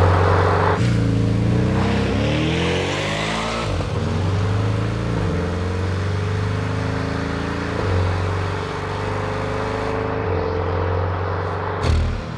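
Porsche 718 Boxster GTS's turbocharged flat-four engine and exhaust under way. The engine note drops about a second in, then climbs in pitch for a couple of seconds as the car accelerates, then holds fairly steady. A few sharp cracks come near the end.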